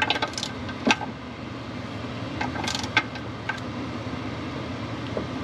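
Scattered metallic clinks of tools and hardware being handled, a few short sharp ones about a second in and again around three seconds in, over a steady background hum.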